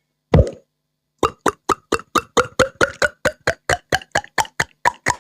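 Beatboxed water-drop sound made with the mouth: a single low plop, then a rapid, even series of sharp drip-like plops, about four or five a second.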